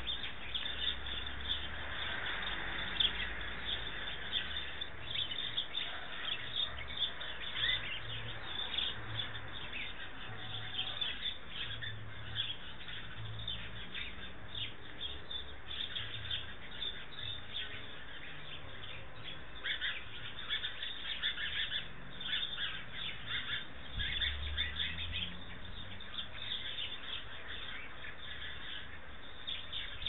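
Several wild birds chirping and calling at once, many short calls overlapping one another throughout.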